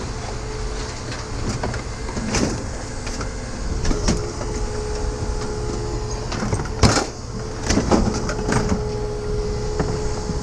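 Scattered knocks and clanks from handling and taking apart scrap metal, the loudest about seven seconds in, over a steady hum.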